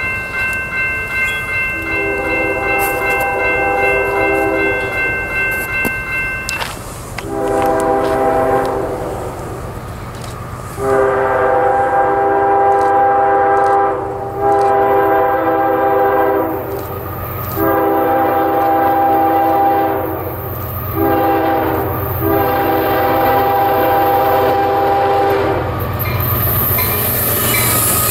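Multi-chime air horn of an approaching CSX freight led by a GE ES40DC locomotive, sounding six blasts of mixed length, long and shorter, as it nears. Near the end the diesel locomotives' low rumble grows as they arrive alongside.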